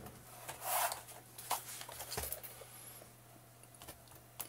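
Faint scattered clicks and short scrapes of a flat-blade screwdriver and hands working the rubber foot pocket off an Omer Stingray long fin's blade.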